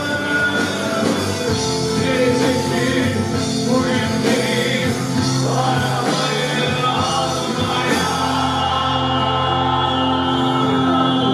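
Anatolian rock band playing live, with electric guitar, bass and drums, and singing over the band.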